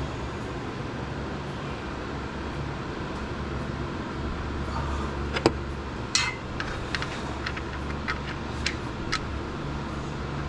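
Steady hum of a shop fan. About five and a half seconds in comes a sharp metallic click, then a clink with a short ring and a string of lighter clicks as a metal seal-puller tool knocks against the transmission.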